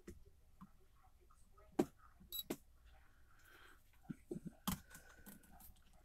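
Light clicks and taps of a titanium-handled folding knife being handled and set down on a digital pocket scale, a handful of scattered ones with the sharpest a little before the end.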